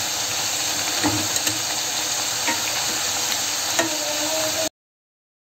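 Thattai (rice-flour crackers) deep-frying in hot oil: a steady sizzle with a few light clicks, cutting off suddenly near the end.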